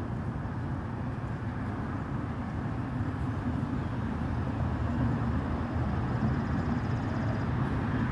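Steady low rumble of road traffic, growing slightly louder through the second half.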